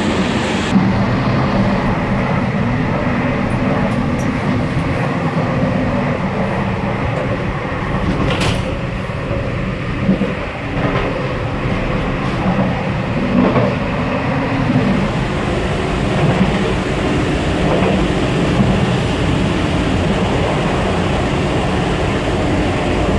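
Running noise at the gangway between two cars of a Taiwan Railway EMU3000 electric multiple unit: a steady rumble of wheels on rail and the car connection, with a few faint clicks.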